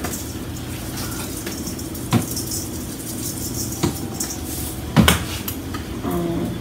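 Kitchen work at the stove: a seasoning shaker shaken over a stainless steel pot, with a light hiss of granules in the first half and three sharp clinks and knocks of kitchenware, the loudest about five seconds in, over a steady low hum.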